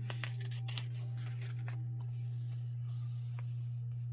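Paper rustling and soft taps as the pages of a small hardcover journal are handled and turned, over a steady low hum.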